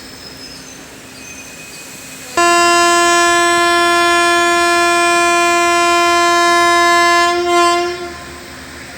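Indian Railways locomotive horn giving one long, steady blast of about five and a half seconds, starting abruptly and wavering briefly just before it cuts off. Under it runs the steady low running noise of the train.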